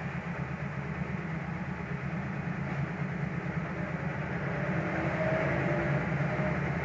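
Steady low mechanical hum and rumble, even throughout, with a few faint short tones near the end.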